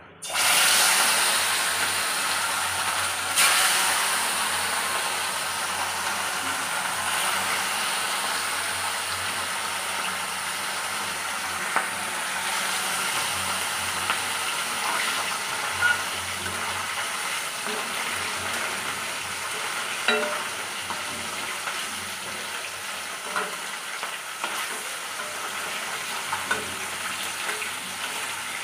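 Rohu fish pieces frying in hot oil in a steel kadhai: a sudden loud burst of sizzling as the fish goes into the oil, settling into a steady frying hiss that eases slowly. A few sharp taps sound over it.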